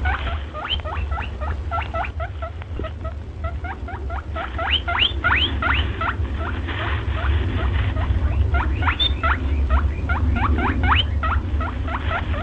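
Rabbit squeaking in a long rapid series, about four or five short, sharp squeaks a second, over a steady low rumble.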